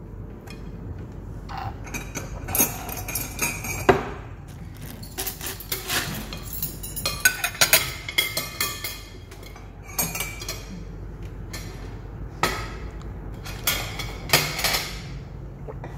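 Metal spoon and fork clinking and scraping against ceramic plates and bowls as rice and food are served onto a plate, with many short, sharp clinks.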